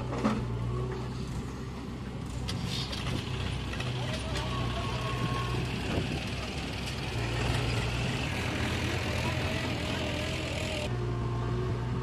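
Diesel engine of a JCB 3DX backhoe loader running under working load, with a faint whine that rises in pitch as the backhoe arm moves. A Mahindra tractor's engine runs alongside, and a short thud at the very start comes as the bucket drops soil into the trolley.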